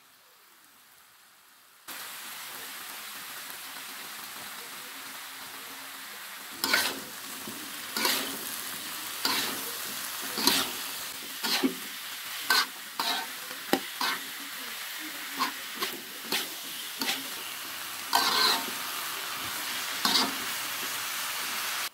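Vegetables and mushrooms sizzling in a hot wok, starting about two seconds in, with a metal spatula scraping the pan and tossing them in repeated strokes from about six seconds in.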